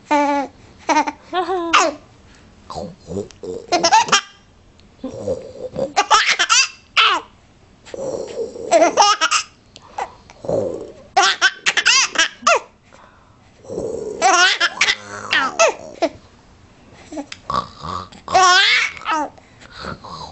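Young child laughing in repeated high-pitched fits, with babbling between them.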